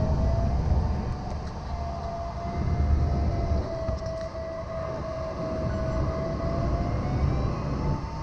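Airflow rushing over a Nimbus 3DT glider's canopy in flight: a steady low rumble of wind noise in the cockpit. A thin electronic variometer tone wavers slowly in pitch and steps up higher near the end.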